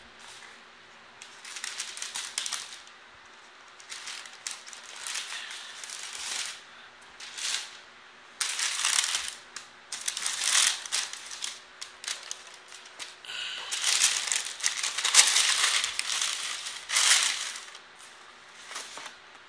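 Tissue paper rustling and crinkling in irregular bursts as sneakers are unwrapped and lifted out of a shoebox, loudest about halfway through and again in the last third.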